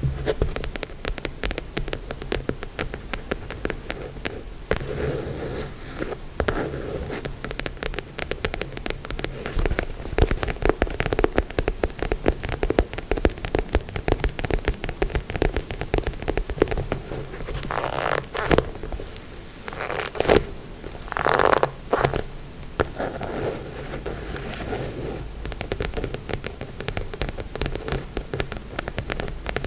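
Rapid, dense tapping and scratching on a surface, with a few louder scratching strokes about two-thirds of the way through.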